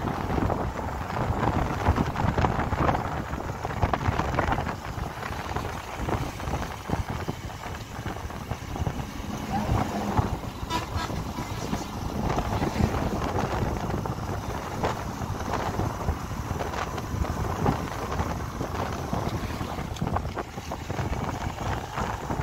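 Wind buffeting the microphone of a camera riding on a moving vehicle, with the rumble of the vehicle and the road beneath it.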